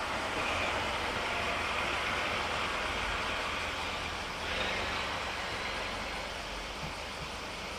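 Electric freight train running through a rail yard: a steady low rumble with a faint hiss, swelling slightly about halfway through.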